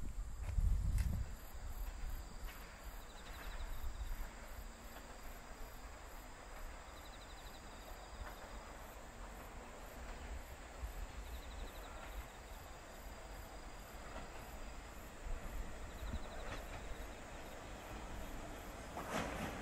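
Insects, crickets among them, chirping steadily in a quiet outdoor setting, with short trills every few seconds and a brief low rumble about a second in. Near the end an approaching diesel railcar starts to be heard as a rising rumble.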